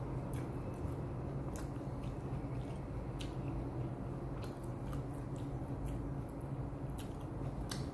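A person chewing food with the mouth closed, close to the microphone, with short wet clicks and crunches scattered throughout. A steady low hum runs underneath.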